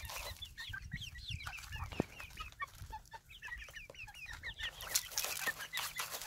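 A flock of young chickens cheeping and clucking as they feed, many short falling chirps overlapping, with scattered sharp clicks of beaks pecking grain in a feeder pan.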